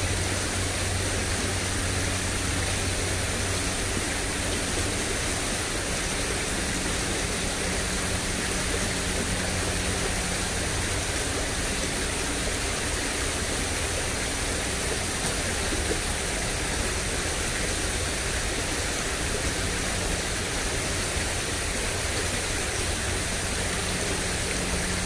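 Steady rush of water flowing in a small ditch, with a faint low hum coming and going underneath.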